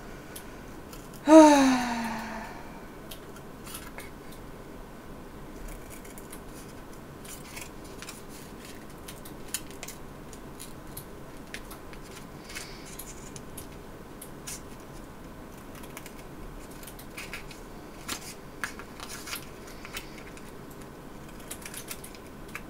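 Scissors cutting thin cardboard, a yarn bobbin's card, in scattered snips and crunches that come closer together near the end. A brief, loud tone falling in pitch sounds about a second in.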